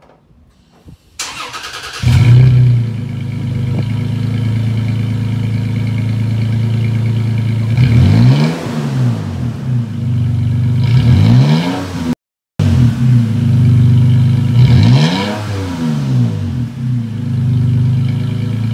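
Toyota Tacoma with an MBRP 3-inch cat-back exhaust cranking over and starting, flaring up as it catches and then settling into a steady idle. It is loud, and the throttle is blipped three times, each rev rising and falling back to idle.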